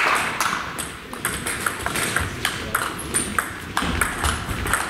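Table tennis rally: the ball clicking off the players' bats and bouncing on the table, a quick run of sharp ticks and short pings.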